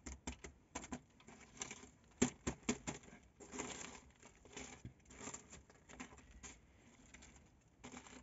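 Crisp, freshly baked tandoori flatbread crackling and rustling as it is handled at the mouth of a clay tandoor: an irregular run of short crackles and soft rustles.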